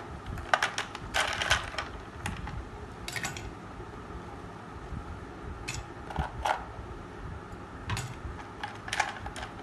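Ice cubes dropped into a drinking glass: a series of sharp clinks in small clusters, every second or two.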